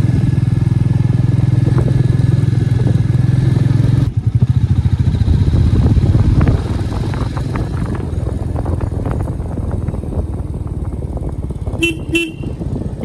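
Motorcycle engine running under way, its note changing abruptly about four seconds in and easing off a couple of seconds later. Two short horn toots near the end.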